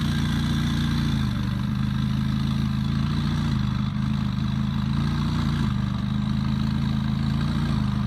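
McLaren 570S twin-turbo V8 idling steadily as the car creeps down the transporter ramp.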